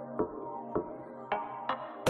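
Electronic background music in a sparse passage: held notes with a few light percussive hits.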